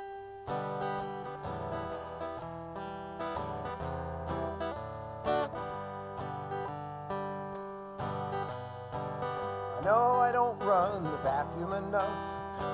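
Acoustic guitar played as a song's introduction: strummed chords changing every second or so. A man's singing voice comes in over the guitar near the end.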